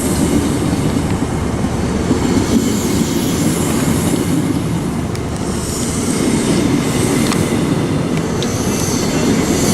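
An InterCity 125 high-speed train's coaches rolling past as it pulls out, a steady rumble of wheels on the track with a few faint clicks from the rail joints.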